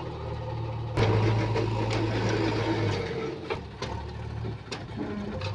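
JCB 3DX backhoe loader's diesel engine running under load, growing louder about a second in as it works, with a few sharp metallic knocks later on.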